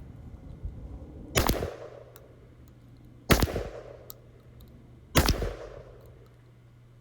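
Beretta 1301 semi-automatic 12-gauge shotgun firing 00 buckshot: three shots about two seconds apart, each with a short echoing tail.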